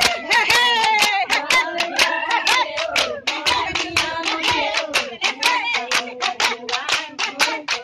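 Women singing a Bihu song together to a fast, steady beat of sharp clacks from split-bamboo toka clappers and hand claps.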